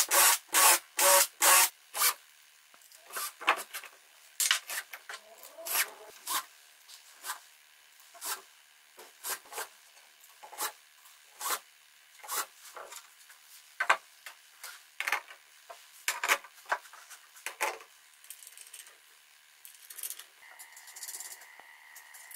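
Rubbing and scraping of wood and hardware being handled on a workbench. It opens with about two seconds of quick even strokes, about two a second, then gives way to scattered short knocks, clicks and scrapes.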